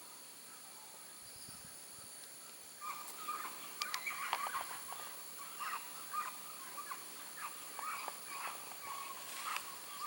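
Rainforest ambience with a steady high insect drone. From about three seconds in comes a rapid, irregular run of short, harsh animal calls.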